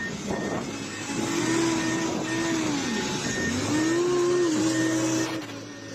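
A vehicle or machine engine running, its pitch rising and falling several times as the revs change.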